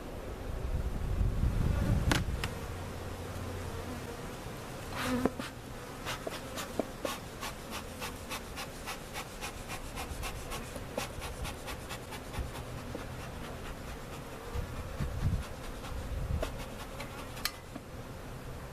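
Honey bees buzzing in a steady hum around an opened hive. A run of light, sharp clicks comes in the middle.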